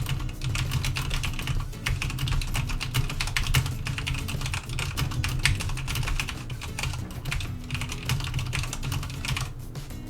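Fast typing on a computer keyboard: a dense, continuous run of key presses.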